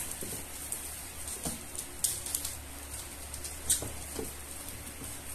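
Black plastic wrapping on a shoebox crinkling and rustling as the box is handled, with irregular sharp crackles, the loudest about two seconds in and again near four seconds.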